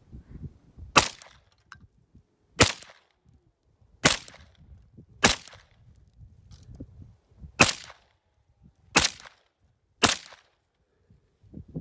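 Ruger PC Carbine, a 9mm semi-automatic carbine, fired seven times at a deliberate, uneven pace, one sharp shot every one to two seconds.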